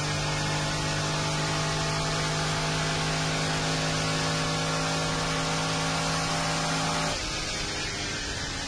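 Inside the cabin of a Corvair fitted with a 1959 aluminum Chevrolet 283 V8, the engine is running at a steady, constant pitch on a high-speed run over heavy wind and road rush. About seven seconds in the engine note suddenly drops away, leaving only the wind and tyre noise.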